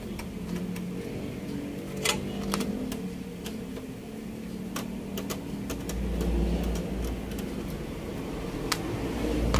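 Screwdriver undoing the screws of an amplifier heatsink: scattered sharp metallic clicks and small scrapes, a handful over several seconds.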